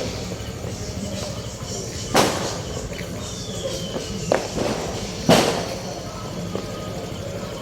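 Low, steady rumble of an idling motorcycle engine, broken by three sharp bangs about two, four and five seconds in, the first and last the loudest.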